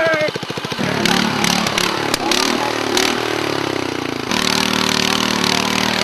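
A small engine running: its pitch sags slowly for a few seconds, then picks up and holds steady about four seconds in, with a few sharp knocks over it.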